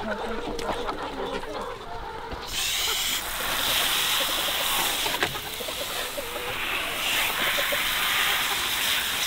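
Garden hose spraying water into a trough, a steady hiss that starts abruptly about two and a half seconds in. Hens cluck before the water comes on.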